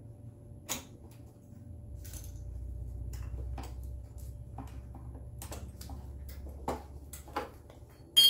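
Scattered light clicks and knocks of hand-tool work on a motorcycle footpeg mount, over a low steady hum. Near the end comes a sharp metallic clink with a brief ringing, the loudest sound.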